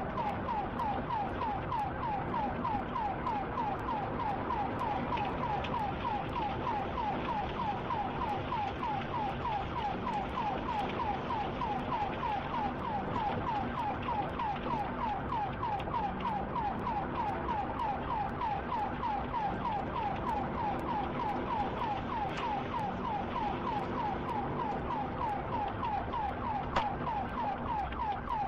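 Police car siren in fast yelp mode, a rapidly repeating wail of about four sweeps a second, steady throughout, with vehicle and road noise beneath.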